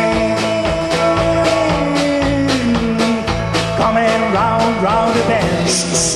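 Live rock-and-roll band playing: electric and acoustic guitars over a steady drum beat, with a melody line that slides down in pitch. A bright hiss joins near the end.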